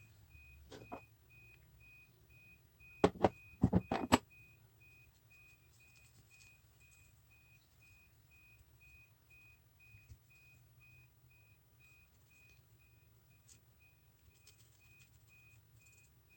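A quick cluster of about six sharp, hard knocks about three to four seconds in, with a single lighter knock just before. Under them a faint high electronic beep repeats about twice a second throughout.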